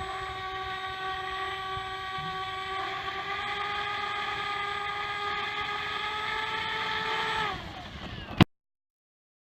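Electric motor and five-blade propeller of an FMS Pilatus PC-21 1100mm RC model running with a steady whine, its pitch rising slightly about three seconds in, then spooling down near the end. A sharp click follows, and the sound cuts off.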